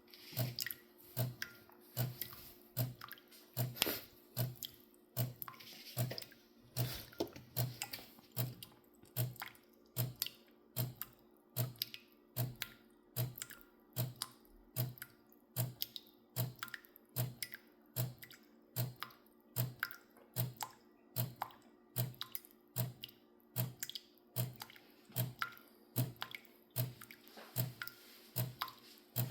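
DēLonghi Magnifica Evo coffee machine running its cleaning cycle: its pump pulses in an even rhythm, about one and a half beats a second, with water dripping.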